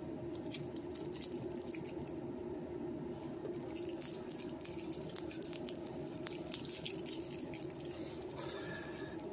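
Plastic shrink-wrap on a card deck crinkling in the fingers as it is picked at to get it open: an irregular stream of small crackling clicks over a steady faint hum.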